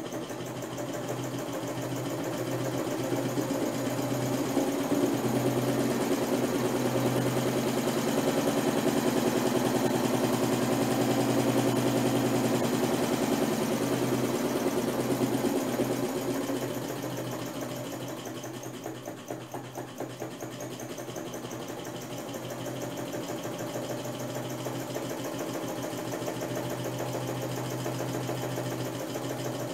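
A 775 12 V DC motor driving an old Singer sewing machine through its handwheel, motor and mechanism running with a steady hum and fast even rattle. It grows louder over the first few seconds, then drops about two-thirds of the way through as the speed controller is turned down, and settles again.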